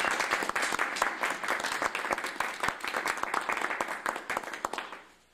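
Audience applauding, a dense patter of many hands clapping that tails off and stops near the end.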